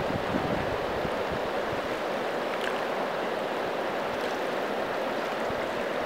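A high, fast river rushing steadily, an even watery hiss, with some low wind buffeting on the microphone about a second in.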